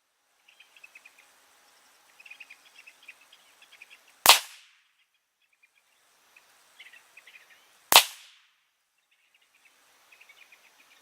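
Two single rifle shots from an AR-15 with a 16-inch 5.56 upper firing .223 full metal jacket rounds, spaced about three and a half seconds apart as slow aimed fire. Faint high chirping is heard between the shots.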